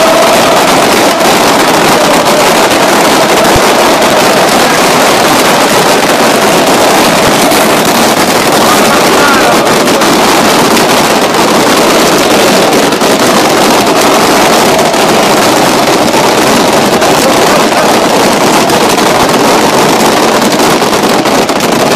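Dense crowd of football ultras chanting in unison, very loud and unbroken, overloading the recording microphone.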